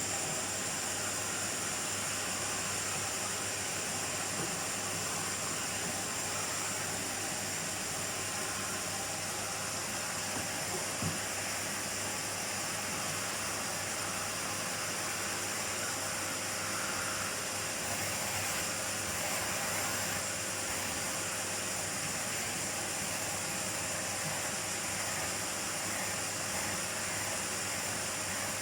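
Miele vacuum cleaner running steadily: an even, unchanging rush of air with a faint steady hum beneath it, and one small tick about eleven seconds in.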